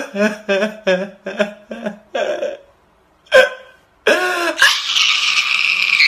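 A man's voice crying out in a quick run of short, hiccup-like sobbing cries, then after a brief pause a long, loud wail from about four seconds in.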